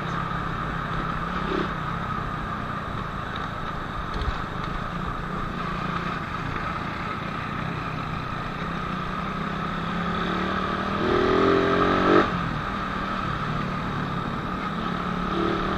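Suzuki Raider R150 motorcycle's single-cylinder four-stroke engine running steadily under way, with traffic around it. Around ten to twelve seconds in, the sound swells with a rising pitch and peaks briefly.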